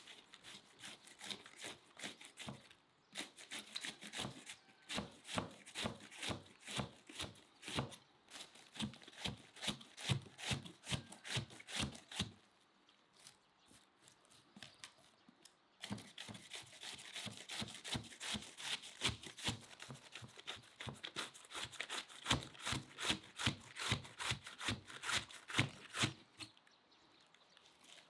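Handheld cabbage shredder drawn repeatedly across a half head of white cabbage, slicing off fine shreds onto a wooden board: rhythmic slicing strokes about two to three a second, stopping for about three seconds near the middle.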